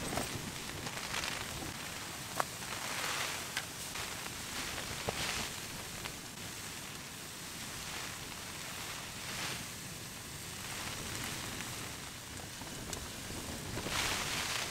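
Minced meat and spring onions sizzling in a small pan over a Trangia spirit-burner flame, in waves of hiss, with a few sharp clicks.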